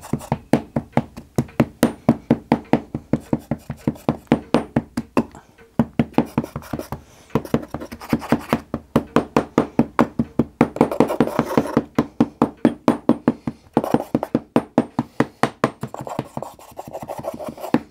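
Wooden tamping block pounding Petrobond oil-bonded casting sand down into a wooden moulding flask: quick dull knocks, about four a second, with a few short pauses.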